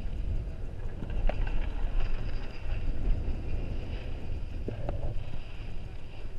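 Wind rushing over the microphone of a camera on a moving chairlift chair, a steady low rumble, with a couple of light clicks about a second in and again near the end.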